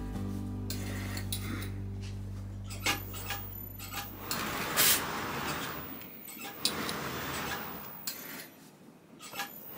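Fabric rustling as a garment sleeve is smoothed and arranged by hand on a padded sleeve ironing board. Light clinks of metal come through, one sharper knock about five seconds in. Soft background music plays under the first half.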